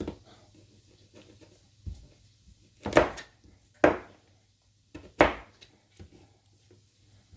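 Kitchen knife chopping carrots on a cutting board: about five single sharp chops, roughly a second apart, with faint scraping and handling in between.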